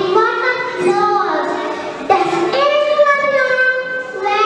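A young girl reciting a rhyme into a microphone in a sing-song voice, drawing out long held notes.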